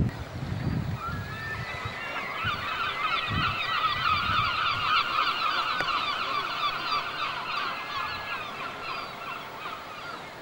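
A large flock of seabirds calling together, many short overlapping calls. The chorus swells after about a second and fades away near the end.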